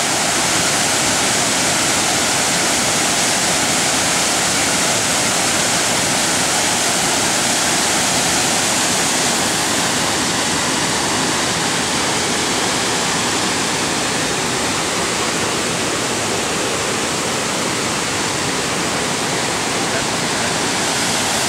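Waterfall swollen by heavy rain, a loud steady rush of falling water that does not let up.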